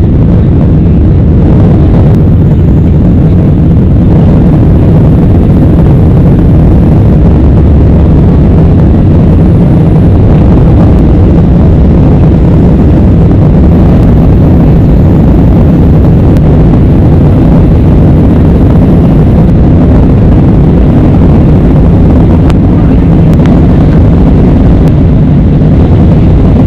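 Airbus A320 cabin noise in flight while climbing: the jet engines and rushing air give a loud, steady low rumble.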